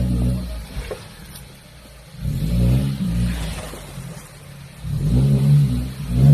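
Suzuki Vitara 4x4's engine revving in swells a couple of seconds apart as it is driven over rocks in a river crossing, easing off between each rise.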